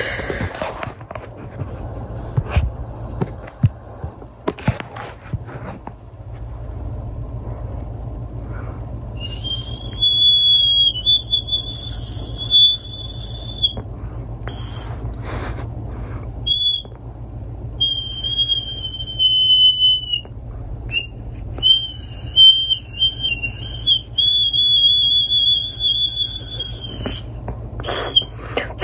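Miniature plastic toy recorder being blown, giving a single high, thin whistle-like note in several breaths a few seconds long with short gaps between them, the pitch wavering a little in some. About the first third is only light handling noise before the first note.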